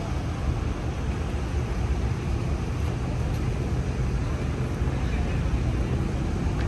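A crane's engine running steadily with a low rumble as the boat is set down on its trailer.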